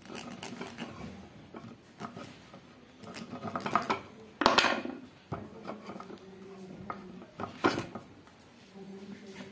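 Light clicks and metallic clinks from small tools, wire and parts being handled on a workbench, with a sharper knock about four and a half seconds in and another near the end.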